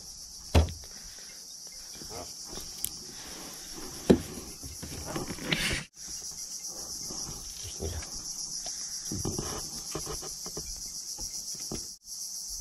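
Steady high-pitched chorus of night insects, with a few sharp knocks, the loudest about half a second in and about four seconds in. The chorus cuts out for a moment about six seconds in and again near the end.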